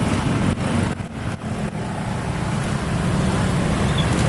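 Steady, loud rumble of motor traffic at a railway level crossing, with wind noise on the microphone; the sound dips briefly about a second in, with a few sharp knocks.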